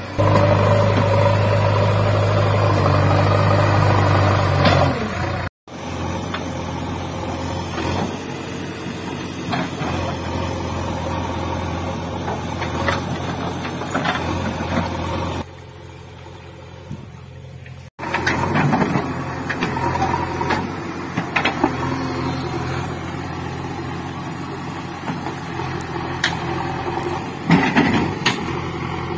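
JCB backhoe loader's diesel engine running under load, loud and steady at first, then working on with scattered metallic clanks and knocks from the bucket and arm, the loudest near the end.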